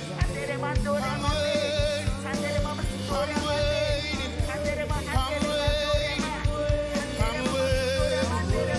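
Worship music: a sustained sung melody with vibrato over band accompaniment with a regular drum beat.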